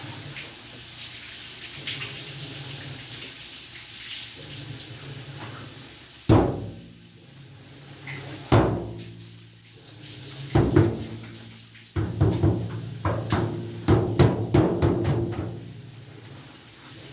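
Hard blows pounded on a washing machine's cabinet, ringing like a drum over a steady low hum: single hits about six and eight and a half seconds in, a pair near ten and a half seconds, then a fast flurry of blows for about three seconds.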